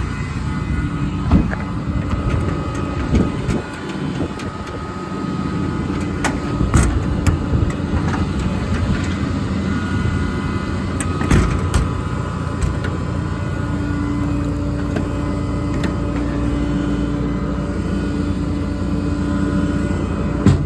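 The truck's 6.7-litre Cummins diesel idling steadily, with a few sharp knocks and clicks scattered over it.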